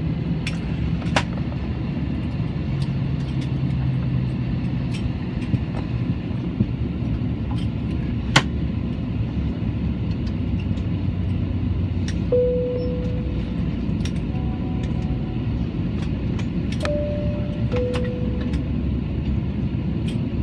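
Steady low rumble of an Airbus airliner's cabin with the engines and air conditioning running, broken by scattered sharp clicks. Past the middle come a few short chime tones: one, then a higher-lower pair.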